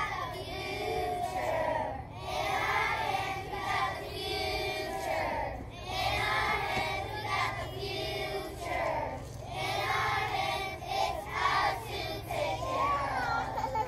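A group of first-grade children singing a song together in unison, in short phrases with brief breaks between them.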